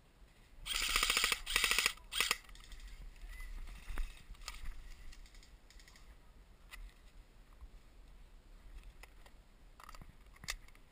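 Airsoft rifle firing on full auto: two rapid bursts in the first two seconds and a short third just after, followed by scattered single pops and clicks.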